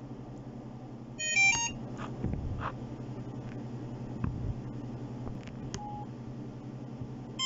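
A Samsung Egèo flip phone's startup jingle as it powers on: a quick run of electronic beeps stepping through several pitches, lasting about half a second, about a second in. A single short beep follows near the end, and the same jingle starts again at the very end, all over a low steady hum.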